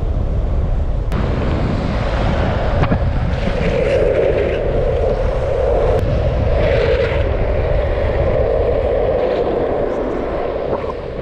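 Wind rushing over the microphone and longboard wheels rolling on asphalt at speed, a steady heavy rumble.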